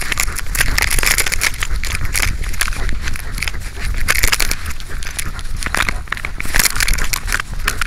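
Close rustling and crackling from a camera on a search dog's harness as the dog pushes through grass and brush, with the harness and fur rubbing against the microphone.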